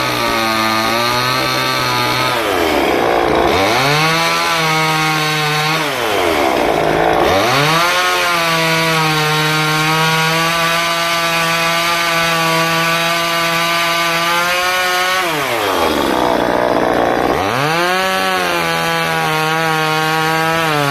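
Two-stroke chainsaw running at high revs while carving wood, its engine note dropping and climbing back three times as the throttle is eased off and opened up again.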